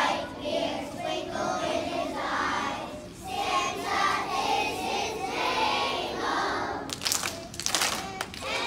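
A class of young children singing a Christmas song together, with a few sharp hand claps about seven seconds in as the singing breaks off.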